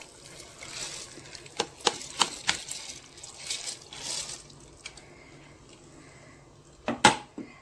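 Soaked rice and toor dal poured from a container into boiling water in a pressure cooker: a wet, pattering hiss with small ticks for about four seconds. Near the end comes one sharp knock, the loudest sound here.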